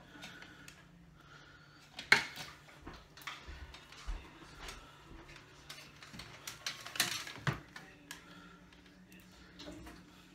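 Small clicks and knocks of a multimeter and its test probes being handled and set down on a hard stone worktop. The sharpest knock comes about two seconds in, and a run of clicks comes around seven seconds.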